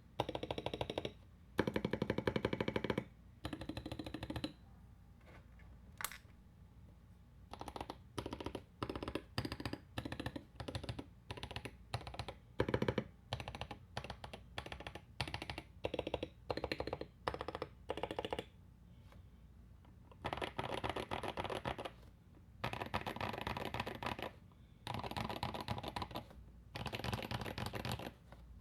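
Typing on an Akko MOD001 mechanical keyboard with lubed Gazzew Boba U4T tactile switches, an aluminum plate, foam and tape mods and doubleshot ABS keycaps. Fast runs of keystrokes open it, then a stretch of slower single key presses, then four more fast runs of typing near the end.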